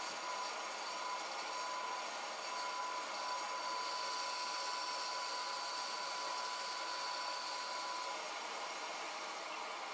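Bandsaw cutting through 3/4-inch white pine: a steady whir with a thin whine over it. The whine stops about eight seconds in as the cut ends, while the saw runs on.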